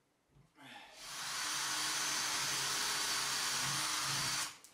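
Cordless drill with a 6 mm bit drilling a hole up into the ceiling: the motor spins up a little under a second in, then runs steadily under load for about three and a half seconds and stops suddenly near the end.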